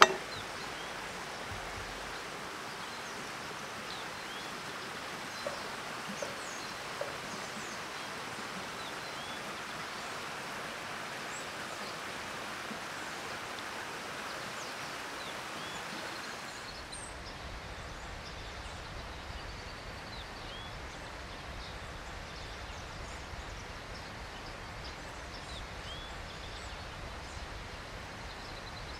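Outdoor woodland ambience: a steady rushing background with small birds chirping throughout. It opens with a sharp knock as a knife cuts through a burger onto a wooden board. About two-thirds of the way in, the ambience changes to a duller background with a low rumble.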